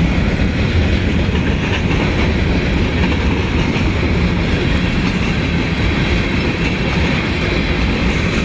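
Union Pacific freight train's cars rolling past close by, a steady rumble of steel wheels on rail.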